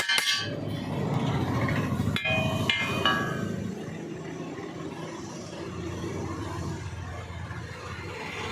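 Metal clanking several times in the first three seconds, each strike ringing briefly, over a steady low hum.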